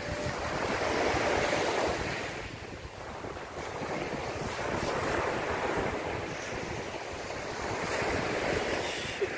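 Small waves breaking and washing up a sandy beach, the surf swelling and ebbing every three to four seconds, with wind buffeting the microphone.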